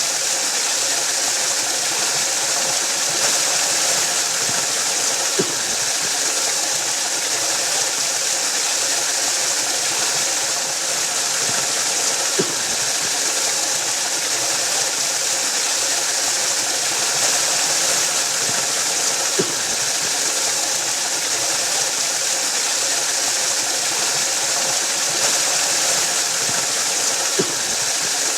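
Waterfall rushing in a steady, dense hiss that is strongest in the high range. A short click sounds four times, about every seven seconds.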